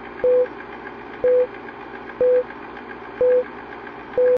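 Film-leader countdown sound effect: five short beeps, one each second, each about a quarter second long, over a steady crackling hiss with fast ticking. It cuts off suddenly at the end.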